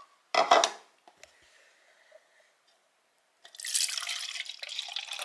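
Soy sauce poured from a measuring cup into a container of sliced onions and chili peppers for pickling brine, a noisy liquid splash in the last two seconds. A short knock of the cup or container comes about half a second in.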